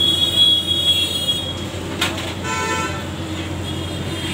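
Vehicle horns from street traffic: a high horn held for about a second and a half at the start, then a short toot about two and a half seconds in, over a steady low hum and background noise.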